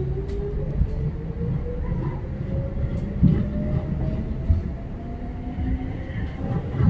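Keihan 5000 series electric commuter train heard from inside the car as it accelerates away from a station: the traction motor whine climbs steadily in pitch over a constant rumble of wheels on rail, with a few short knocks from the wheels, the strongest about three seconds in.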